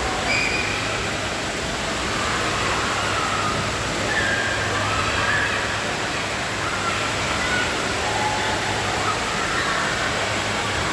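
Indoor water park ambience: a steady rush of running water, with short, faint calls of distant voices scattered through it.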